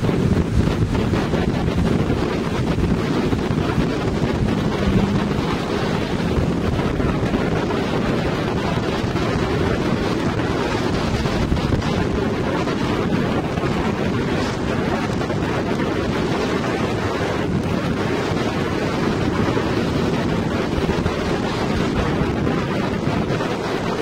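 Steady loud rush of wind buffeting the microphone mixed with the spray and churned water of a Yamaha WaveRunner's jet wake while the personal watercraft runs at speed.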